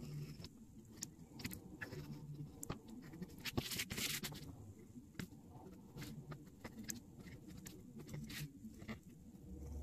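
X-Acto craft knife blade cutting through a sticker sheet on a plastic cutting board: a quick, irregular run of small clicks and scratches, with a longer scraping stretch about four seconds in.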